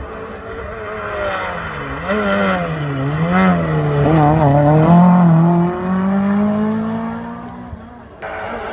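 Historic rally car's engine driven hard past at close range. The revs rise and dip several times, loudest about five seconds in, then climb steadily as the car pulls away and fades.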